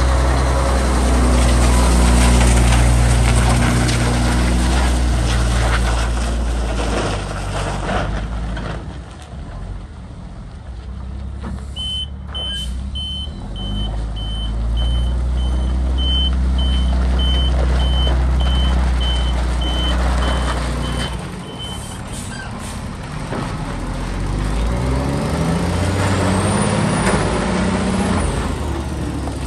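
Volvo A30D articulated dump truck's six-cylinder diesel engine running as the truck drives and manoeuvres. Through the middle its reversing alarm sounds a steady series of high beeps. Near the end the engine revs up with rising pitch as the truck pulls away.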